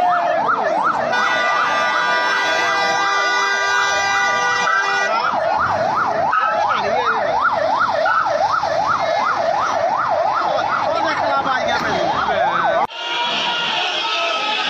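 A vehicle siren wails in a fast up-and-down yelp, about two to three sweeps a second. A horn chord is held over it for about four seconds near the start. Near the end it cuts off suddenly to crowd noise in a large hall.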